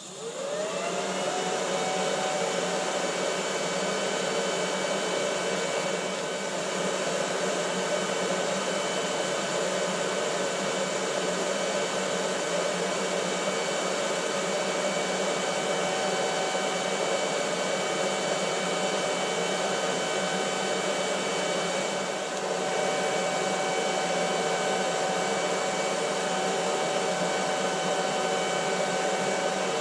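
Lathe motor spinning up to speed, its whine rising over the first second, then running steadily while the tacked throttle-tube shaft is buffed.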